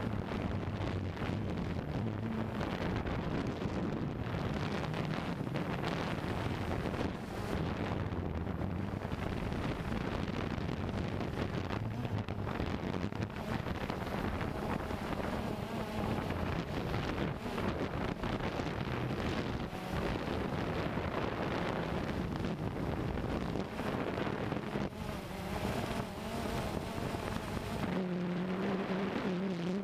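Wind buffeting the microphone, with a steady low hum underneath.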